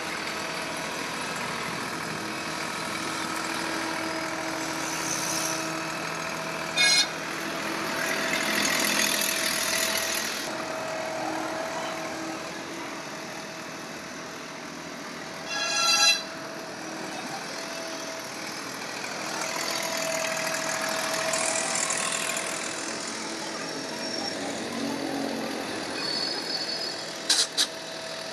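A tractor's diesel engine running steadily, with slow swells of hiss and a few short, sharp sounds about 7 s and 16 s in and a couple of clicks near the end.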